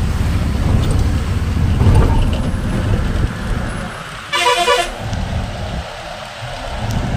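Steady low engine and road rumble inside a moving truck cab, with a short warbling horn blast about four seconds in, lasting about half a second.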